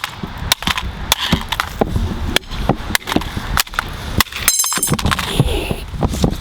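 Repeated sharp hits of a staff smashing plastic, quick and irregular, with a short rattling clatter about four and a half seconds in.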